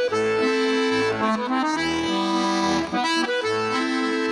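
Accordion playing an instrumental interlude between sung verses: sustained melody notes and chords over a bass that pulses about twice a second.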